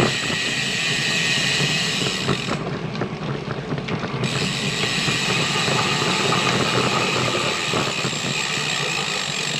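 Rear hub of a road bicycle freewheeling, its ratchet pawls clicking rapidly as the bike coasts, over steady wind and tyre noise.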